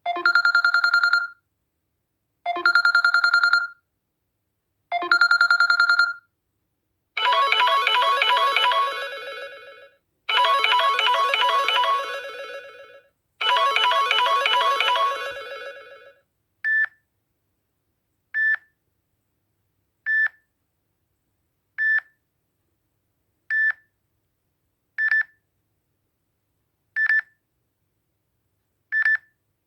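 Samsung Galaxy J7 (2017) ringtones playing from the phone's ringtone list. First a short electronic tone three times about 2.5 s apart, then a longer many-note chime three times, then a short single beep repeating about every 1.7 seconds.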